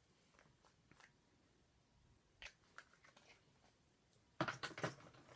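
Makeup items handled and rummaged through: a few faint clicks, then about four seconds in a quick run of louder clicks and clatter.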